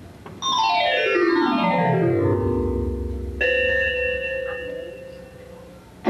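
Synthesizer sound effect: a rapid run of notes falling from high to low over about two seconds, then a single held note that slowly fades out.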